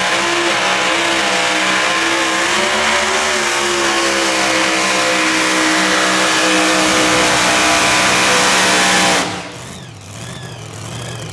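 Supercharged engine of a mini modified pulling tractor running at full revs as it drags the weight-transfer sled, then dropping off sharply about nine seconds in as the pull ends.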